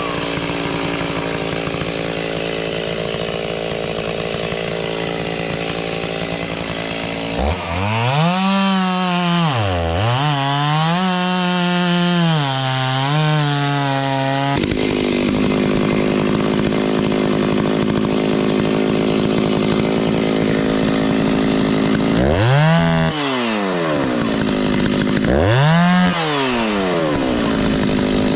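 Stihl chainsaw cutting firewood rounds from a hardwood log: the engine holds a steady pitch through the cuts, and between them its pitch drops and climbs again several times as the throttle is eased and opened.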